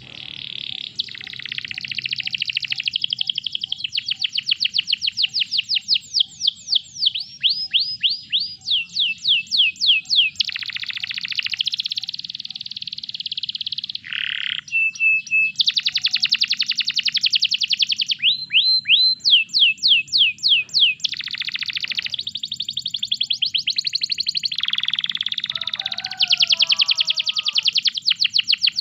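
Canary singing a long unbroken song of fast trills and rolls, runs of rapidly repeated sweeping notes that change to a new phrase every second or two.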